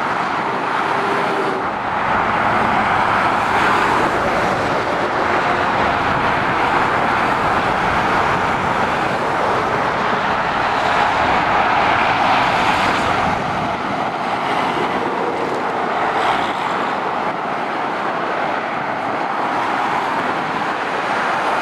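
Motorway traffic: lorries and cars passing, a steady wash of tyre and diesel engine noise that swells a little as each vehicle goes by.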